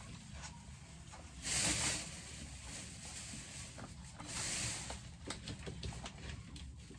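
Thin plastic produce bag rustling and crinkling as handfuls of cherries go into it. There are two louder rustles, about a second and a half in and about four seconds in, with small clicks and taps in between.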